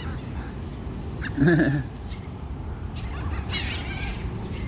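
Seagulls calling in short harsh squawks as a flock crowds in on scraps of food, over a steady low background rumble.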